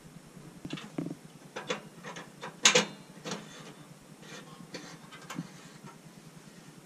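Irregular clicks and light metallic knocks from working the door and burner of a small diesel cabin heater while lighting it with a long-nosed lighter. The loudest knock comes about two and a half seconds in.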